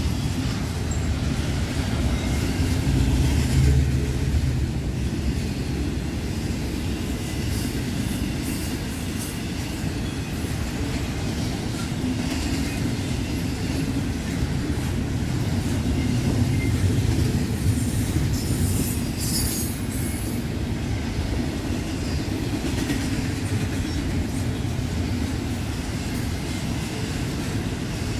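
Intermodal freight train rolling steadily past: a continuous rumble of wheels on rail with clacking over the joints. A brief high-pitched wheel screech comes about two-thirds of the way through.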